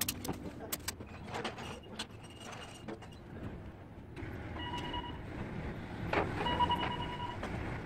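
Hand pallet jack loaded with a wrapped machine being pulled across a concrete floor: wheels rolling with scattered clicks and rattles, and two short squeaks in the second half.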